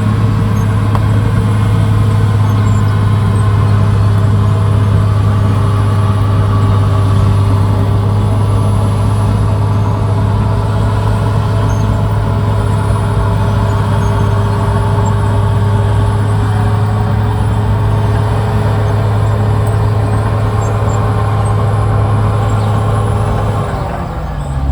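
Caterpillar D6R XL bulldozer's diesel engine running steadily at work. Near the end its note falls and the level dips briefly, then the engine picks up again.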